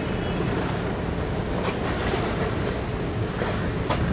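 Steady harbour ambience: wind rumbling on the microphone over water lapping against the hulls of moored tugboats, with a couple of faint knocks.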